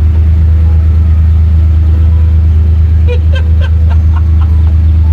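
A vehicle engine running steadily close by, a loud, even low rumble.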